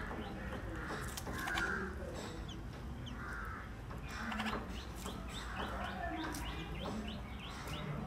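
Bulbuls chirping: scattered short, high chirps that come in a quick run in the second half, over a steady low rumble.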